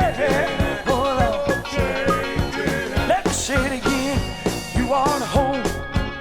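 Gospel song recording: voices singing over a band with a steady beat.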